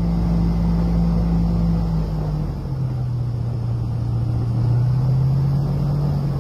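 Airboat engine and propeller running with a steady drone, the pitch stepping down a little about two and a half seconds in.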